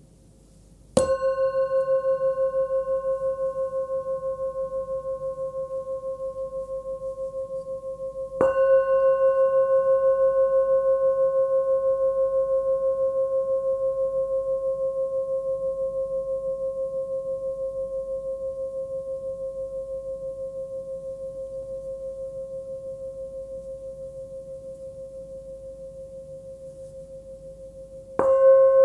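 Small 11 cm hand-forged singing bowl tuned to about 528 Hz (C), struck three times: about a second in, again around eight seconds in, and near the end. Each strike rings on in one long, slowly fading tone that wavers with a steady pulse, while fainter higher overtones die away sooner.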